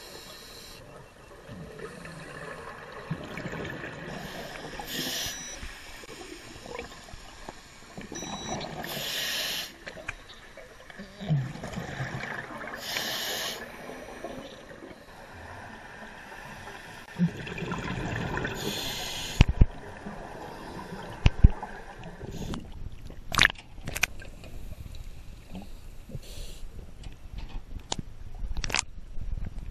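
Scuba regulator breathing underwater: bursts of rushing exhaled bubbles every few seconds over a low watery hiss. In the last third come several sharp knocks.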